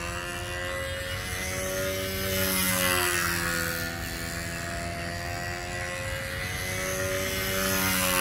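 Control-line Tempest 2 stunt model's PA .65 two-stroke glow engine running at full speed as the plane flies in circles around the pilot. Its pitch rises and then drops, and it grows louder, twice: once about two to three seconds in and again near the end, each time the plane passes close by.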